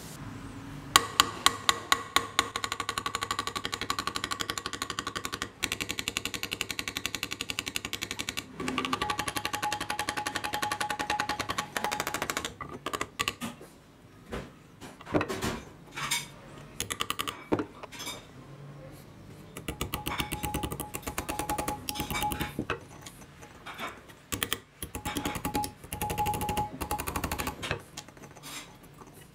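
Old corded electric drill running in bursts of a few seconds, with a fast, even rattle over a steady motor whine, switched on and off repeatedly.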